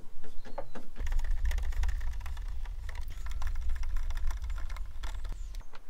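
Screwdriver fitted with a T25 Torx bit undoing trim screws: fast, irregular clicking and rattling of the tool. A low rumble runs underneath from about a second in until near the end.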